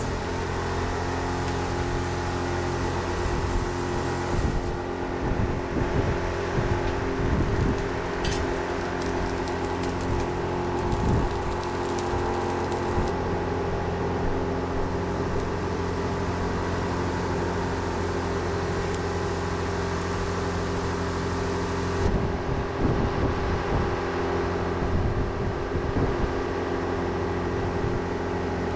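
Electric motor of a workshop machine running with a steady hum, with occasional knocks and scrapes as work is handled at it.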